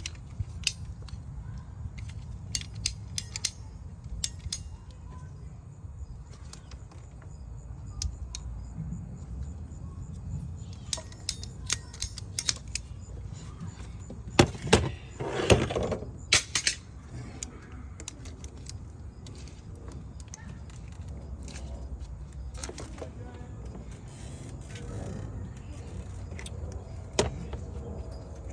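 Scattered clicks, clinks and knocks of hand tools and hose parts being handled during engine-bay hose repair, with a louder bout of rattling and rustling about halfway through, over a steady low hum.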